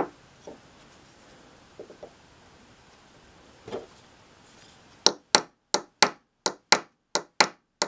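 Small ball-peen hammer tapping a steel pin punch in quick light taps, about three a second, starting about five seconds in, driving a pin out of a screwdriver's wooden handle scales. Before that, a few faint knocks as the punch and handle are set in place.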